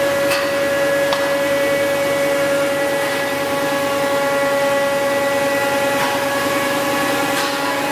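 Single-screw plastic pelletizing line (extruder and strand pelletizer) running steadily while processing polycarbonate, a constant machine hum with a pitched whine, with a few faint ticks.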